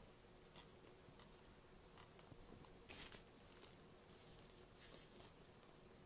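Faint scratchy rustles of doll packaging and wrapping being handled and opened, a few short ones with the loudest about three seconds in.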